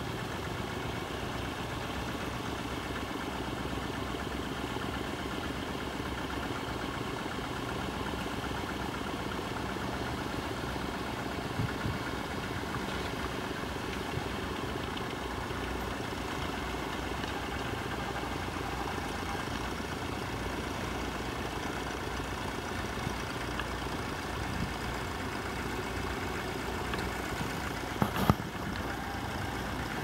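Vintage tractor engines running steadily under load as they pull ploughs, with a few sharp clicks, the loudest pair near the end.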